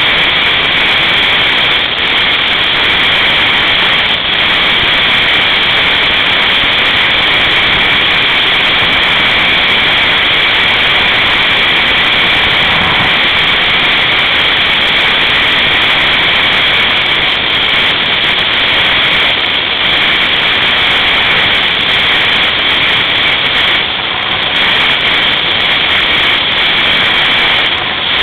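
Yamaha Apex four-stroke snowmobile travelling fast along a snow trail: a loud, steady rush of engine and wind noise, with no clear changes in pitch.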